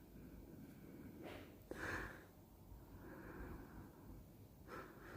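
Quiet room with a person's faint breathing and sniffing close to the microphone, and a single light click about a second and a half in.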